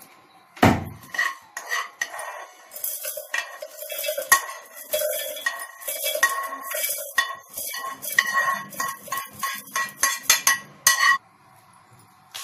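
A metal spoon scraping and knocking against a pan as dry-roasted peanuts and spices are emptied into a mixer-grinder jar: a heavy knock about half a second in, then quick clinks and scrapes with a ringing metal tone that stop abruptly near the end.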